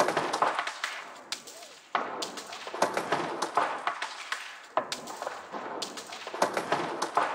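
Electronic soundscape of looped, pitch-shifted field-recording samples: a dense, repeating clatter of clicks and knocks that cuts in and out suddenly.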